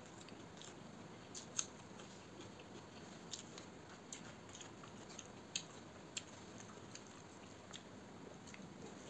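Eating by hand from a steel plate: fingers mixing rice and curry, and chewing, faint against room tone. Sharp little clicks come every second or so, about six in all.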